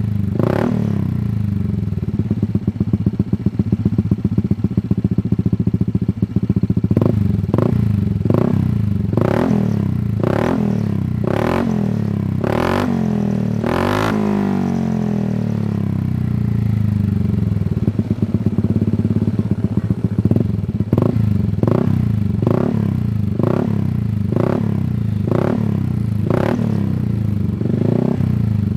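Motorcycle engine idling through an aftermarket racing exhaust, blipped with short throttle revs about once a second in two runs. One bigger rev about halfway through falls slowly back to idle.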